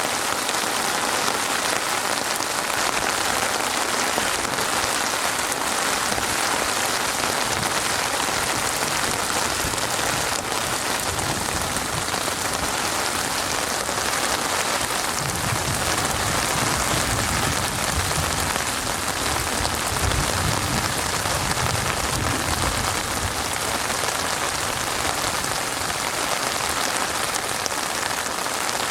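Steady rain falling on a surface, an even hiss of many drops without letting up. A low rumble rises under it for several seconds in the middle.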